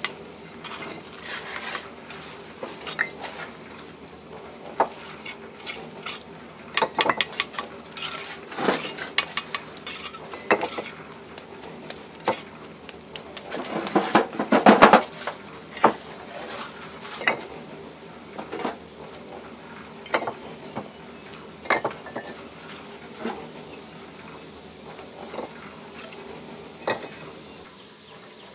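Irregular metallic clinks and knocks, with a dense stretch of scraping and clattering about halfway through.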